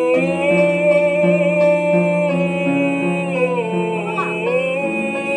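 A singer holds one long sung note over steady piano accompaniment; about four seconds in the pitch dips briefly and comes back up.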